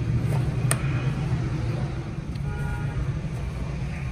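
A steady low motor rumble, with one sharp click just under a second in.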